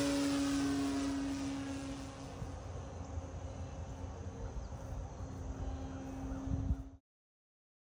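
RC glider's nose-mounted motor and propeller running steadily under power as the plane climbs away after a hand launch, its tone fading with distance. The sound cuts off abruptly about seven seconds in.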